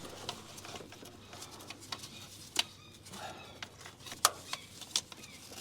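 Scattered clicks and light knocks of a filter wrench being handled and tried against an engine filter in a cramped spot.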